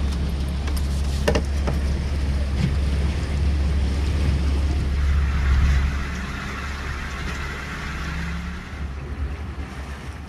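A boat's outboard motor running with a steady low drone under the hiss of water and wind. The drone eases off about six seconds in, while the water hiss swells for a few seconds.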